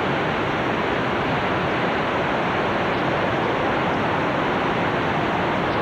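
Hurricane-force wind in the eye wall of a hurricane, a steady rushing noise that holds at one level without letup.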